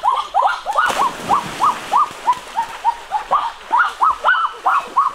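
A duck quacking rapidly and steadily, about three short calls a second. Water splashes about a second in.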